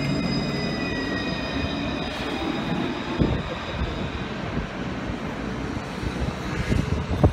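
Paris tram pulling away from the stop: a low rumble of wheels on rails with the thin high whine of its electric traction motors, slowly fading as it moves off. A couple of short knocks are heard about three seconds in and near the end.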